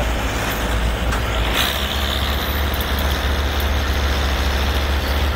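Steady low drone of a combine harvester's engine running. About a second and a half in, the note steps slightly higher and a hiss rises with it, then both hold steady.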